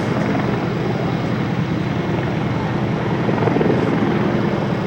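A heavy motor running steadily with a fast, even chop.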